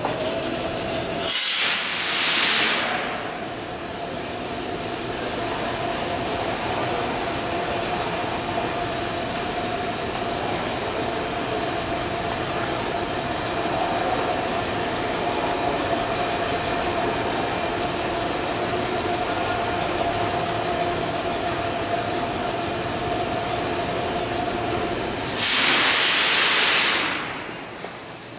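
Subway train standing in the station with a steady running hum and a held tone. A loud air hiss comes about a second in and again near the end, each lasting a second or two.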